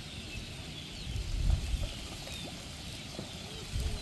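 Quiet marsh ambience with faint distant bird calls and two low rumbles, about a second in and near the end.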